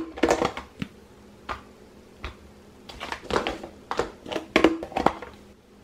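Cooked brown rice being scooped and portioned into containers: a utensil clicking, tapping and scraping against the containers in short irregular bursts, busiest in the second half.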